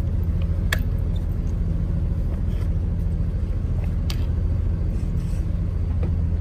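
A boat's engine running steadily with a low drone. Two light clicks come about a second in and about four seconds in.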